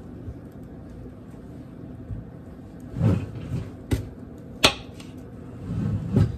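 Kitchen counter handling noises: two sharp knocks a little under a second apart, about halfway through, as food is prepared with a knife, with a few softer thuds around them.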